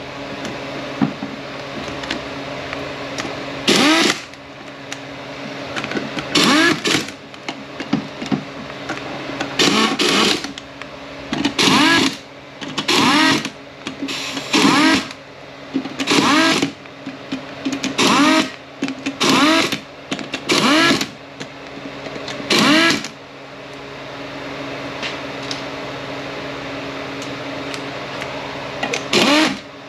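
Air ratchet spinning fasteners into an aluminium transmission case in a dozen or so short bursts, each winding up and stopping within about a second, some in quick pairs. A steady shop hum runs underneath between the bursts.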